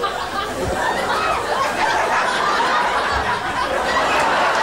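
A crowd of people laughing and chuckling at once, many voices overlapping at an even level.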